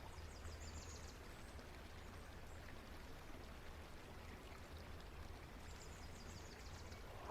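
Faint, steady background ambience: a low hiss with a hum beneath it, and faint high chirps near the start and again near the end.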